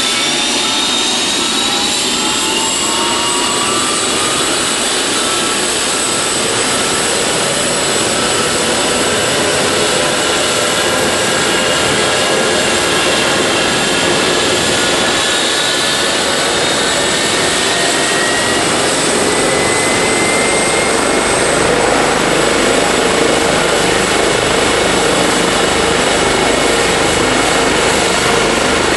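Helicopter turbine engine running loud and steady with a rushing rotor noise. Its whine rises in pitch over the first few seconds and again about two-thirds of the way through, then holds.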